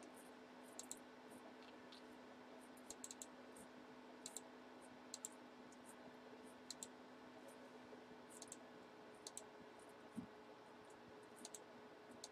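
Faint, scattered clicks of a computer mouse and keyboard, coming singly and in quick little clusters, over a low steady hum, with one soft thump about ten seconds in.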